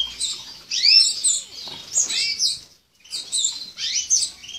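Canary chirping in quick groups of high, sweeping notes, with a short pause about three seconds in.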